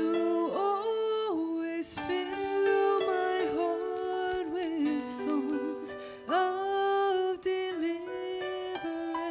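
A woman singing a slow worship song solo into a microphone, her voice sliding between held notes, over sustained instrumental chords.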